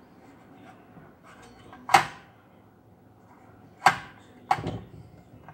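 Three sharp knocks, about two seconds in, near four seconds and half a second later, as a Total cordless circular saw is handled and shifted about on a tabletop.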